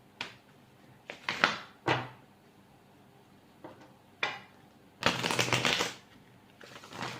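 A deck of tarot cards being shuffled in several short bursts of rapid flicking; the longest burst comes about five seconds in and lasts about a second.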